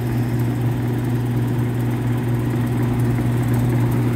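A 1960s McGraw-Edison 5500 BTU room air conditioner running steadily, its Copeland reciprocating compressor and fan making an even, low hum with a fan rush over it.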